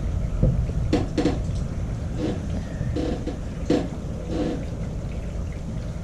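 Rubber fin foot pocket being worked onto a glued carbon blade by hand: scattered short rubbing and knocking sounds over a steady low rumble.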